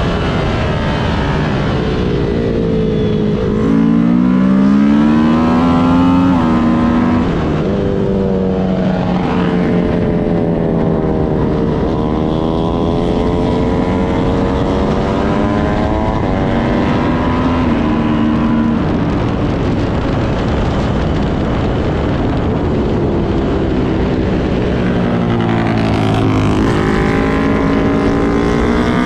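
Kawasaki Ninja 400cc sport-bike engine under hard riding, its pitch repeatedly climbing and falling with throttle and gear changes, heard close up from a handlebar-mounted camera over steady wind rush.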